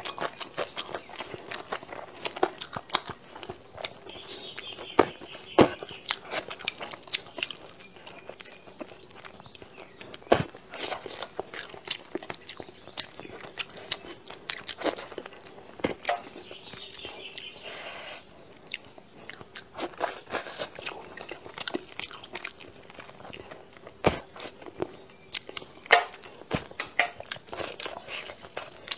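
A person eating braised crucian carp and rice: chewing, biting and mouth smacks, a string of short, sharp clicks and crunches.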